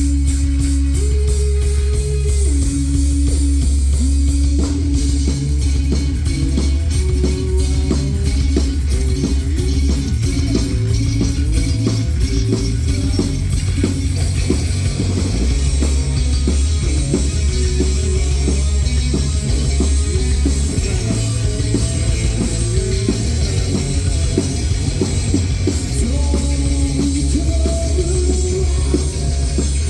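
Rock band playing live without vocals: guitar lines over bass and drum kit.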